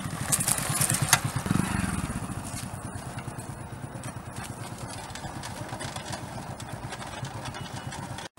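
Motorcycle engine passing close and riding away, loudest a second or two in and then growing steadily quieter as it goes off. A few sharp clicks are heard near the start.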